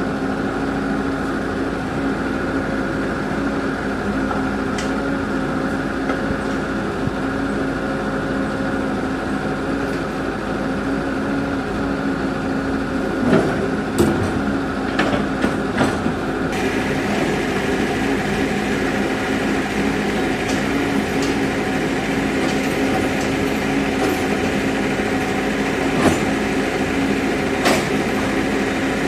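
Diesel engine of heavy earthmoving machinery (excavator or bulldozer) running steadily, with a few short knocks and clanks about halfway through and near the end.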